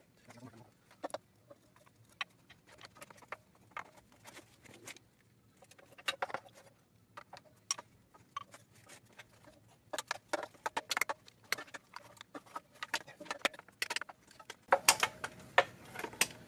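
Irregular light clicks and clinks of hand tools and metal parts being handled while stripping an engine, with quiet gaps between, getting busier and louder near the end.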